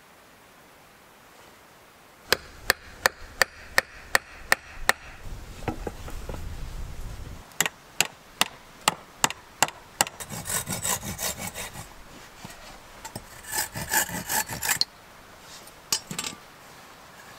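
A hatchet knocking on a wooden pole frame as it is fitted together, with a run of about eight sharp blows at roughly two and a half a second, then another run of about seven. After that come bursts of scraping as the wooden poles are worked and shifted against each other.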